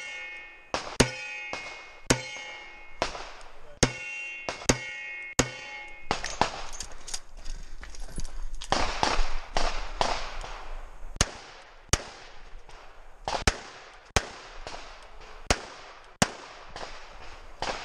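Smith & Wesson 686 revolver firing a string of shots, several of them followed by the ringing clang of struck steel targets. About six seconds in, the shots stop for roughly two to three seconds, then another string of shots follows.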